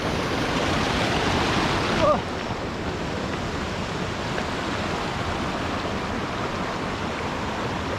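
Steady rushing water of a waterfall, dropping a little in level about two seconds in.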